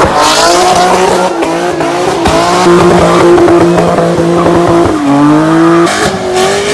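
Car engine held at high, steady revs with tires squealing, a burnout, with a crackle of pops running through it. The revs dip about five seconds in and climb back.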